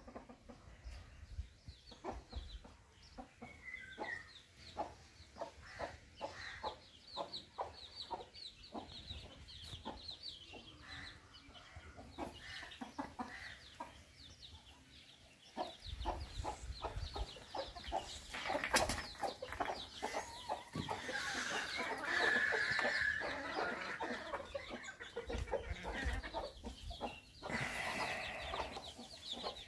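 Backyard chickens clucking: a flock of hens and roosters making short, repeated calls, busier and louder in the second half.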